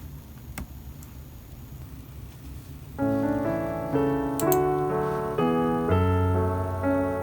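A single faint click over low background noise, then piano music comes in about three seconds in, with chords changing about twice a second.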